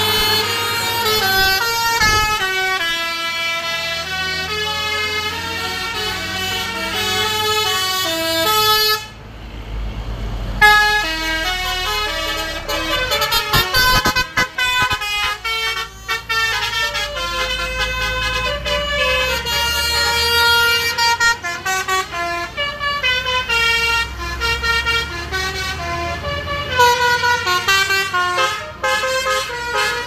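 Bus telolet horns: multi-tone musical air horns on Indonesian coaches, playing quick stepped melodies, one run after another, over the low running of the bus engines.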